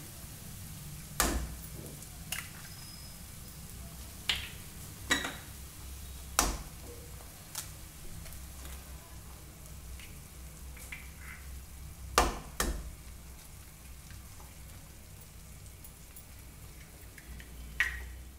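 Eggs being cracked one by one on the edge of a non-stick pan: sharp taps of shell every second or few, some in quick pairs. Underneath, shredded cabbage fries faintly and steadily in the pan.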